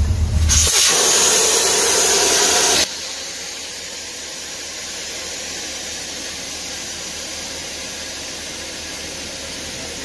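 Air hissing out under pressure during tire ballast work: a loud, even hiss that starts about half a second in and cuts off suddenly just under three seconds in, followed by a steady fainter hiss.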